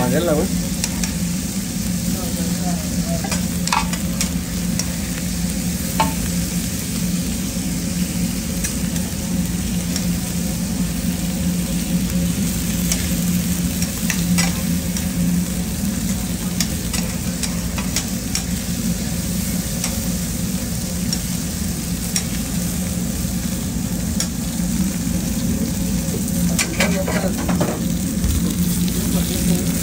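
Steak and masa picadas sizzling on a flat-top griddle, with a few sharp clacks of metal tongs and spatula against the griddle, over a steady low hum.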